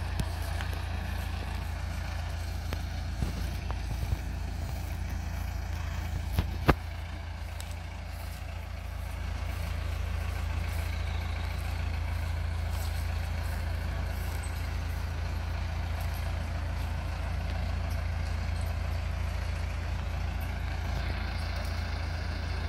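Diesel shunting locomotive's engine running steadily as it moves along the track hauling a steam locomotive tender, with a few knocks and one sharp loud knock about six and a half seconds in.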